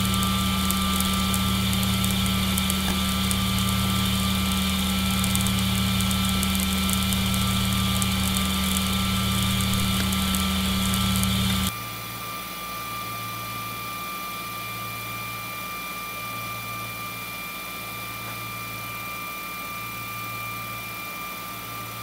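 3D printer hot end extruding nylon filament, its fans and motors giving a steady hum with a low pulse about once a second. For the first half, wet nylon crackles and pops as its moisture boils off in the nozzle. About twelve seconds in the sound drops to a quieter hum with the crackling gone: dry nylon extruding cleanly.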